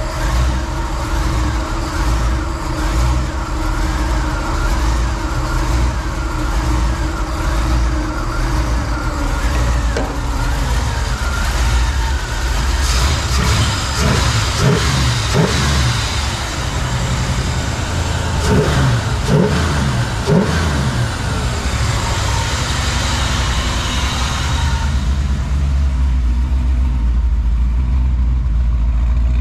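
Chevrolet C10's V8, just converted from carburettor to throttle-body fuel injection, running at idle after its first start on the new system. Around the middle it is given several short blips of the throttle that rise and fall in pitch, then it settles back to a steady idle.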